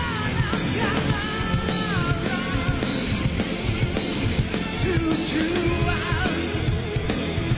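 Live rock band playing, with electric guitar and drums and a wavering melody line over them.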